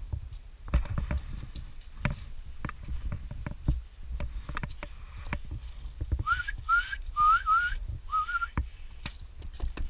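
Five short rising whistled notes about six seconds in, over scattered clicks, knocks and low rumble from gear handling and movement.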